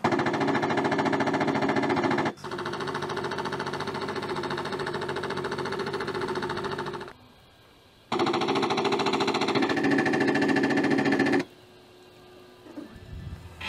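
Rapid machine-gun fire from the Aston Martin DB5's twin rotary mini-guns hidden behind its headlamps. A burst of about two seconds runs straight into a slightly quieter one of about five seconds, and after a pause of about a second comes a last burst of about three seconds.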